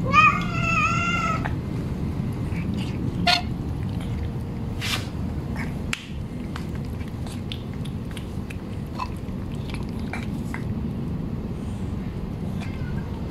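A cat meows once, a long call of about a second and a half, with a short second call a few seconds later. After that, cats eat wet food from a plastic tray, with small wet clicks of licking and chewing over a steady low background hum.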